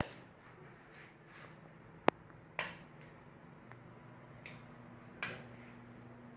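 Faint low steady hum of a Venti-Delta New Delta Light ceiling fan's motor setting in about halfway through, with a few sharp clicks, the loudest about two seconds in.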